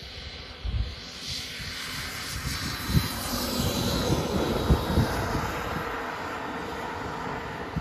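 Model jet turbine of a Tomahawk L-39 RC jet running, its rushing noise with a faint high whine swelling to loudest about halfway through and then easing off, with a few brief low thumps.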